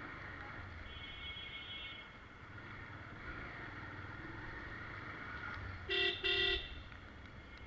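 A vehicle horn gives two short toots in quick succession about six seconds in, over a steady low engine rumble and street noise.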